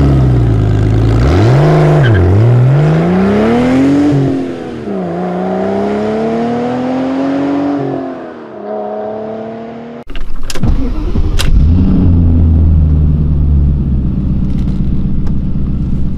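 An engine revving up and down in several long sweeps, which fades out about ten seconds in. Then a BMW E39 540i's 4.4-litre M62 V8 starts with a couple of clicks and a brief rise in revs, and settles into a steady idle.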